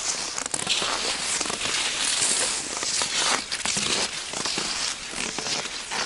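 Footsteps crunching on hard-packed, frozen snow of a snowmobile track, at a steady walking pace.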